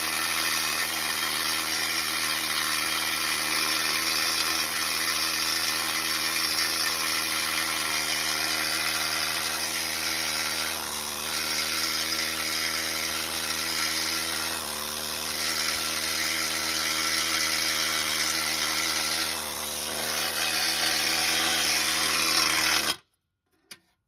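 Pneumatic needle gun (needle scaler) running against a rusty steel truck frame, its needles hammering off the flaking rust scale in a loud, steady rattle. The level dips briefly a few times, and the tool cuts off suddenly near the end.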